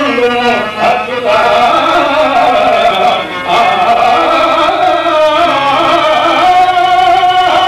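A male voice singing a Telugu drama verse (padyam) in a classical raga, in long drawn-out, wavering held notes.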